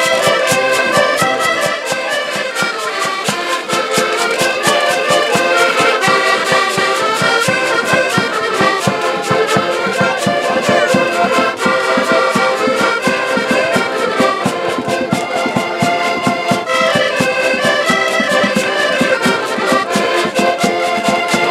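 Several accordions playing a lively traditional folk tune together, with a bass drum keeping a steady beat.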